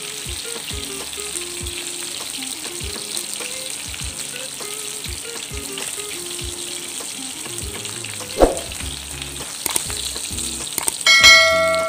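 Whole matambaka (scad) sizzling steadily as they finish frying in hot oil in a nonstick pan while tongs lift them out, with a sharp knock about two-thirds of the way through. A bell-like chime rings out near the end.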